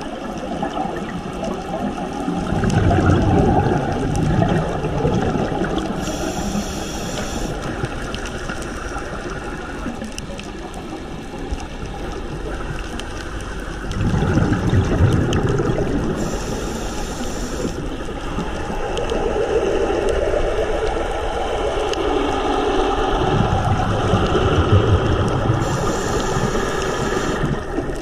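Scuba diver breathing through a regulator underwater. Exhaled bubbles rumble out in a surge about every ten seconds, each followed by a short hiss from the regulator.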